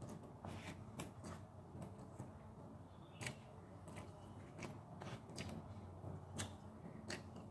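Quiet eating sounds: chewing with the mouth closed, with short wet mouth clicks at irregular intervals, one or two a second.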